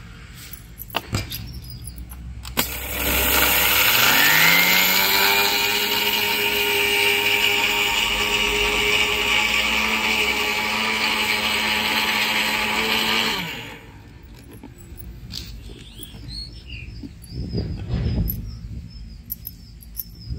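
Electric mixer grinder grinding sugar into powder. The motor starts about two and a half seconds in, its whine rising as it spins up, then runs steadily for about ten seconds before switching off. A few knocks and clicks follow.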